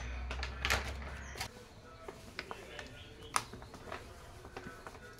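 Quiet kitchen handling: scattered light clicks and taps as wheat flour is poured from a container into a steel parat, with a low hum that stops about a second and a half in.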